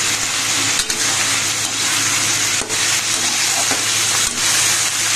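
Chopped sem (flat beans) frying in hot oil in a kadhai, with a steady sizzle. A few short knocks of the spatula against the pan come as they are stirred.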